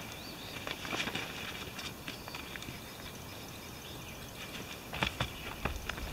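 Light clicks and knocks of a camping chair's aluminium frame poles being fitted and handled: a few scattered early on, then a cluster with a low knock about five seconds in.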